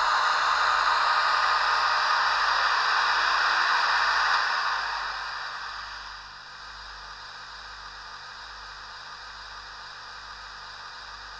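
H0-scale model electric locomotive, converted from Trix 2-rail to Märklin 3-rail, running along the track with its decoder sound on: a steady hiss that fades as the locomotive slows and stops about five seconds in, leaving a fainter steady hiss.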